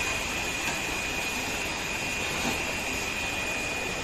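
Steady machine noise in the background: a constant hiss with a high, unchanging whine, like a motor or fan running continuously.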